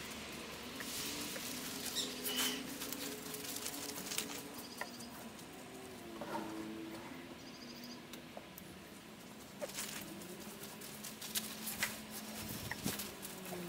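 Quiet rustling with scattered light knocks and scrapes from working wood shavings and leaves around a chicken coop, over soft low wavering tones.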